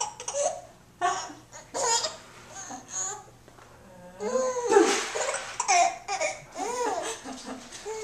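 Baby laughing and babbling in short bursts, with a longer run of laughter about halfway through.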